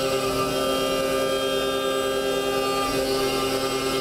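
DMG Mori DMU50 CNC mill's end mill adaptive-clearing 6061 aluminum: a steady whine of several held tones from the spindle and cutter, with a higher tone dropping out near the end.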